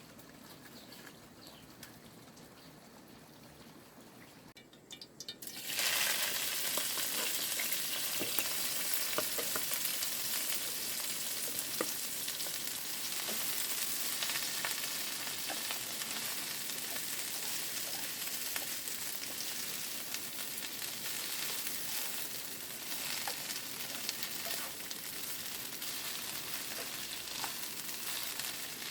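Food frying in hot oil: a loud sizzle full of crackles starts suddenly about five seconds in and carries on steadily.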